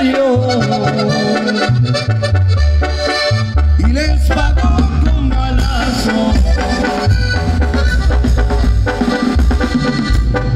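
Tamborazo band playing live: a wind-instrument melody over the steady bass beat of the tambora drum.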